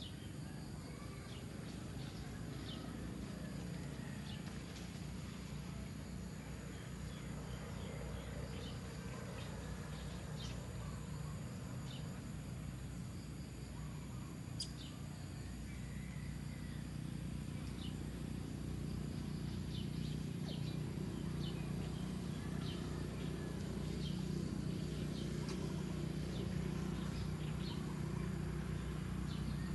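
Outdoor woodland ambience: scattered short, high bird chirps over a steady high insect drone and a low steady rumble, which grows a little louder about halfway through.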